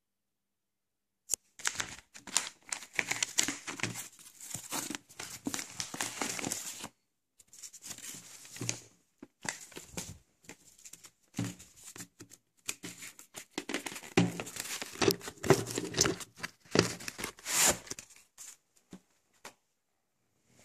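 A cardboard postal parcel and its paper wrapping being torn open by hand: crinkling and ripping in repeated bursts with short pauses, starting about a second in and tailing off into a few light clicks near the end.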